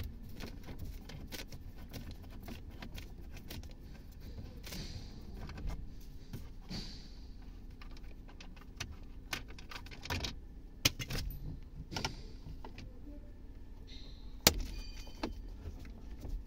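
Screwdriver being worked on dashboard screws and plastic trim: scattered small clicks and metallic rattles, a few brief scrapes, and sharper knocks about ten seconds and fourteen and a half seconds in.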